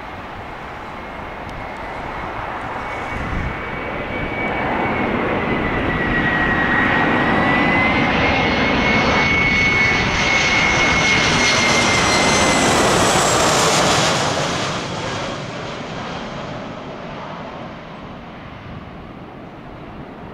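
Boeing 737-300 jet airliner with CFM56-3 turbofans flying past on its landing approach. The engine noise and a steady high whine build up, are loudest for several seconds, then drop away and fade about two-thirds of the way through.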